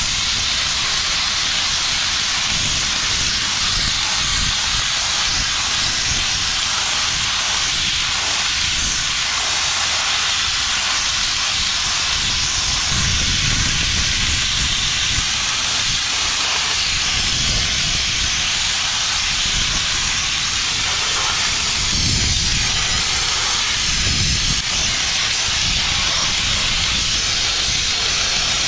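Abrasive blast nozzle hissing steadily as compressed air and grit blast rust and paint off a dump truck's steel tipper body, taking it back to bare steel, with an uneven low rumble underneath.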